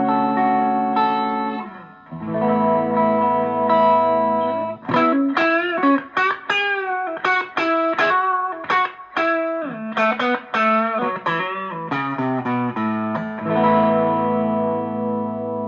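Electric guitar played through a TC Electronic Dark Matter distortion pedal: held distorted chords, then a fast run of single picked notes, then a chord left ringing near the end.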